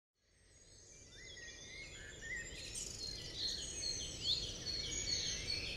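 Several birds chirping, many short rising and falling calls over a steady outdoor background hiss, fading in from silence over the first second or two.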